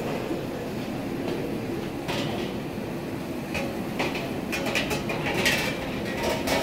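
Footsteps on a tiled kitchen floor, heard as scattered clicks and clatters that come thickest after about four seconds, over a steady rumbling background noise.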